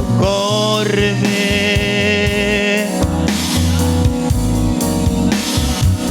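Slow gospel worship song played by a band: drum kit keeping a steady beat under keyboard and guitar, with long held notes from a voice or keyboard between the sung lines.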